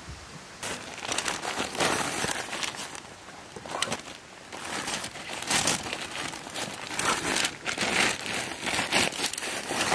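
Crinkling and rustling of something being handled, in irregular bursts that start about half a second in.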